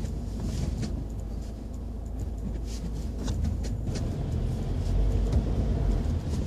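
Car engine and tyre rumble heard from inside the cabin, moving slowly in traffic on a wet road. A low, steady rumble grows a little louder about five seconds in, with faint, scattered ticks over it.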